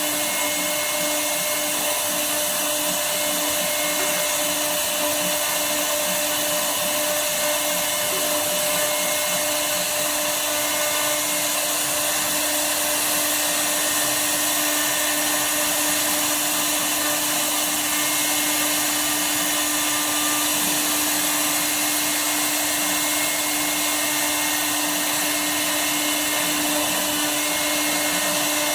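CNC router spindle running at a constant speed while the bit cuts wood, a steady whine over a loud hiss.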